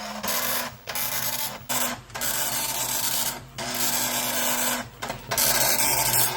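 Philips NMS 1421 7-pin dot matrix printer printing: the print head's sharp, rasping mechanical chatter, in runs of half a second to a second and a half broken by about five brief pauses between passes.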